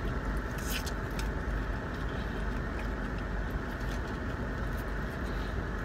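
Steady low rumble and hiss of a car's cabin with the vehicle running, with a few faint mouth clicks from chewing.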